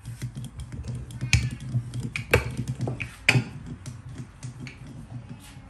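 Wooden rolling pin rolling out puri dough on a wooden board: a run of light clicks and knocks as the pin moves and shifts, with three louder knocks about one and a half, two and a half and three and a half seconds in.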